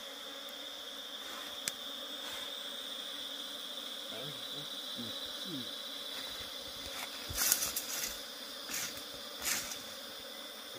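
Steady, high-pitched insect drone, with a few sharp knocks or clatters near the end, which are the loudest sounds.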